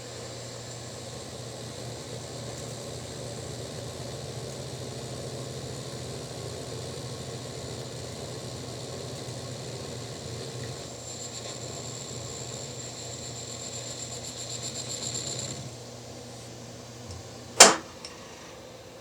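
Metal lathe running and taking a cut on a small metal nut blank, with a high whine from the cut that grows stronger and then cuts off suddenly about three-quarters of the way through. A single sharp click follows near the end.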